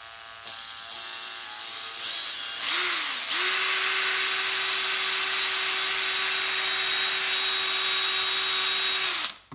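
Electric drill spinning the crankshaft of a small wooden model V8 engine, which turns its wooden pulleys through a rubber inner-tube belt. It runs slowly at first, speeds up about two and a half seconds in, dips briefly, then holds a steady high whine at full speed for about six seconds and stops suddenly.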